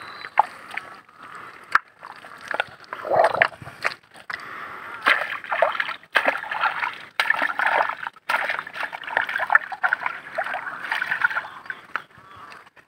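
Wet mud and water splashing and sloshing in irregular bursts as hands dig and scoop in a water-filled hollow of a rotting log to pull out a mud crab.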